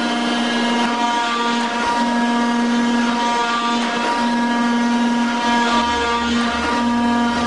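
Rockford 24-inch hydraulic metal shaper running, a steady hum with a whine over it. The hum breaks and returns about every two seconds as the ram strokes back and forth.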